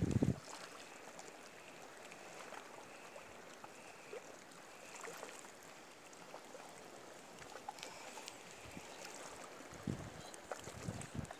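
Steady hiss of wind and rippling water, with a few low bumps of wind or handling on the phone's microphone at the very start and again near the end.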